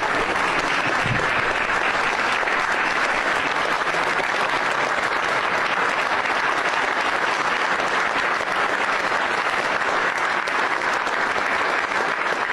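Audience applauding steadily after a signing.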